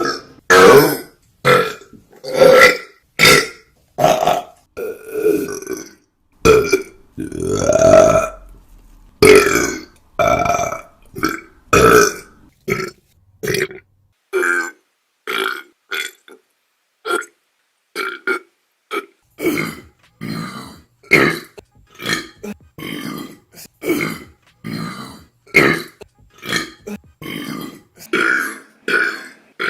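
A woman's burps, edited back to back in quick succession, roughly one a second with brief silent gaps between them. Most are short and loud, and a few are drawn out longer, one lasting about a second and a half.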